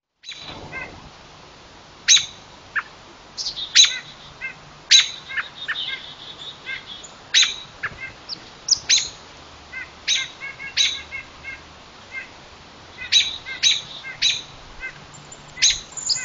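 Small woodland birds calling: many short, sharp chip notes at irregular intervals, some coming in quick runs of three or four notes.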